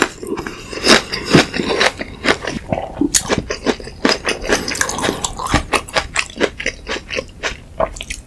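Close-miked chewing, with a dense run of quick wet mouth smacks and clicks.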